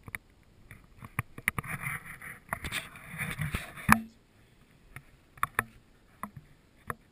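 Handling noise: scattered sharp clicks, with a stretch of rustling and scraping in the middle that ends in one loud click about four seconds in.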